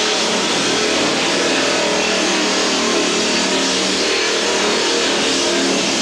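Handheld electric power tool running steadily against the wooden stem of a strip-built canoe: a constant motor hum under a dense hiss of the tool working the wood.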